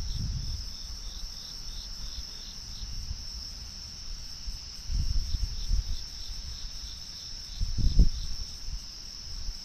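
Crickets and other night insects trilling steadily, one chirping in a quick, regular rhythm. A few low rumbles come under it, the loudest a short thump about eight seconds in.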